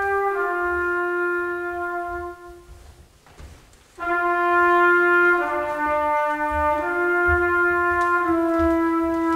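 Trumpet playing slow, long-held notes that step between nearby pitches. It fades away about two seconds in and falls nearly silent, then comes back abruptly about four seconds in with a further run of held notes.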